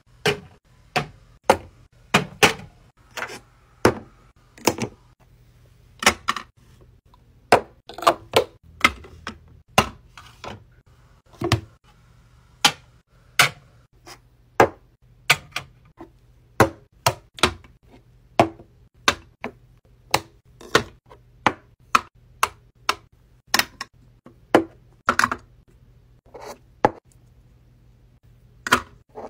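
Plastic and glass cosmetic bottles and tubes being set down one after another on plastic shelves and into an acrylic organizer. The result is a run of sharp clacks and taps, one or two a second at uneven spacing.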